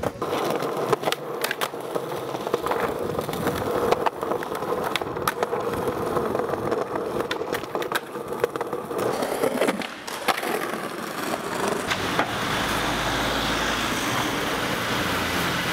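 Skateboard wheels rolling on smooth pavement, with sharp clacks of the board hitting the ground and ledges as tricks are popped and landed.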